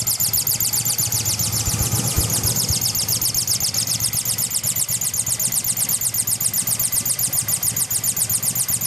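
Yamaha XS650SE air-cooled parallel-twin engine idling steadily, with a fast, even, high hissing pulse in time with the engine. The owner concludes the noise is air being sucked in through a slight gap at the carburettor, not a fault in the engine itself.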